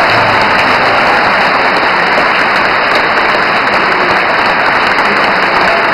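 Large concert-hall audience applauding, a dense, even clapping that holds steady throughout.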